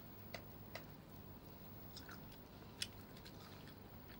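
Close-miked chewing of KFC fried chicken: soft mouth sounds broken by a few short crisp clicks, the sharpest a little before three seconds in.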